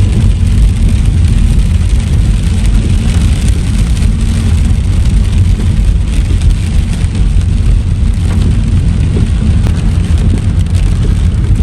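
A car driving in the rain, heard from inside: a steady, loud low rumble of engine and road with the hiss of rain on the car.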